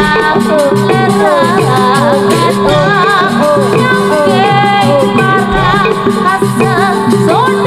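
Loud Javanese jaranan dance music through a sound system: an ornamented, sliding melody line over a dense, steadily repeating percussion pattern.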